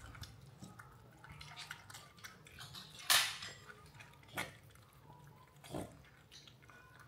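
Scattered small knocks and clatters from handled objects. The loudest is a brief sharp clatter about three seconds in, and two lighter knocks follow, near four and a half and six seconds.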